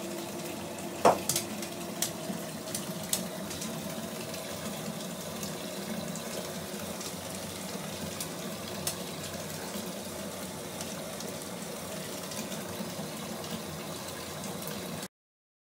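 A bath bomb fizzing in a tub of water: a steady crackling hiss. About a second in there is one loud knock or plop, followed by a few sharp clicks.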